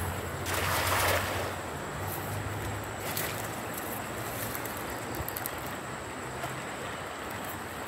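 Steady rush of flowing river water, with a louder splash lasting about a second near the start.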